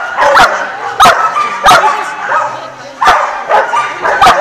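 A dog barking repeatedly, loud sharp barks coming a little over once a second, in an echoing hall.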